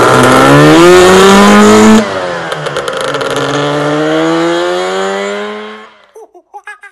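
Two-stroke scooter engine pulling away under acceleration. The pitch climbs, drops sharply at a gear change about two seconds in, then climbs again as the sound fades into the distance. A few short squeaky chirps follow near the end.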